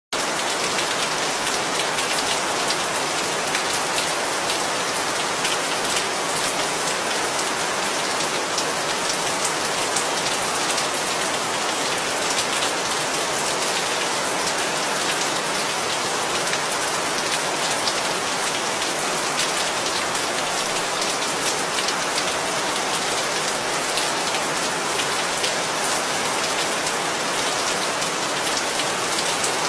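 Heavy, steady rain falling on a surface, a dense hiss of many drop impacts with no thunder.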